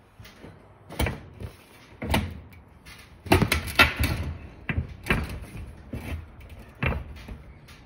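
Irregular knocks and clunks, busiest about three seconds in, as a replacement glass cooktop panel is handled and set onto a kitchen range.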